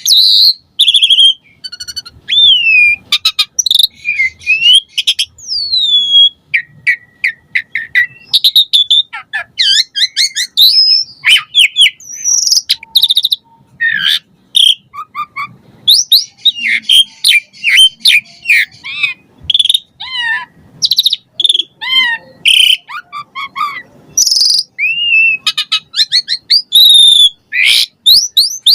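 Asian pied starling (jalak suren) singing loudly and without letting up: a varied run of clear whistles, rising and falling slurs, quick chirps and rattling trills, full of imitated phrases.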